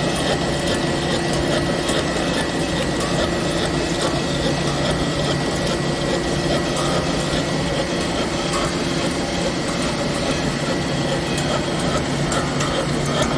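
CNC machine tool cutting metal: a steady machining noise with a constant hum, a thin high whine and a crackle of chips.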